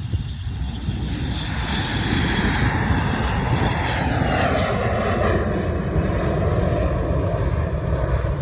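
Jet aircraft taking off, its engines at full thrust, the roar building over the first few seconds and staying loud, with a whine that falls in pitch as it passes.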